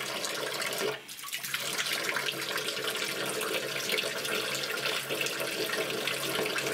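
Bathtub tap running, its water stream splashing steadily into the tub, with a brief dip about a second in.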